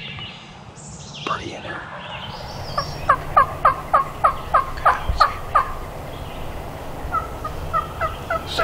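Wild turkey yelping: a loud run of about a dozen yelps, each sliding down in pitch, roughly three a second. A fainter run of yelps follows near the end.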